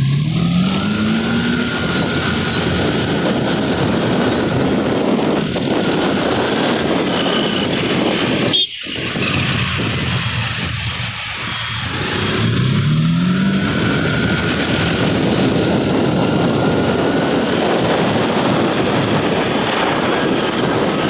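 Road traffic heard from a moving scooter: a steady rush of wind and engine noise. An engine revs up twice, right at the start and again about twelve seconds in, and the sound drops out briefly about nine seconds in.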